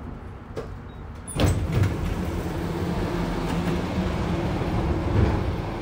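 Bombardier Flexity Berlin tram heard from inside while running. A sudden sharp knock comes about a second and a half in, after which the running noise stays louder with a steady low hum.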